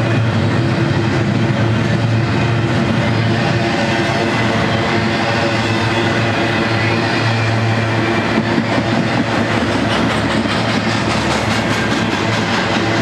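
Double-stack intermodal freight train's well cars rolling past: a steady rumble of steel wheels on the rails, with a low steady hum underneath.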